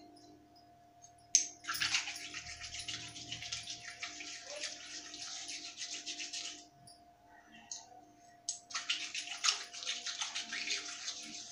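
Hands swishing and rubbing in a basin of water, washing small brass items, in two stretches of splashing with a pause of about two seconds between.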